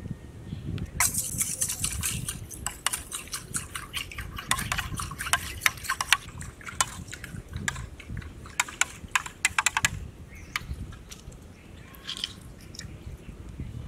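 Food crackling and spattering in hot oil in a pan. Dense popping from about a second in, thinning to scattered pops after about ten seconds.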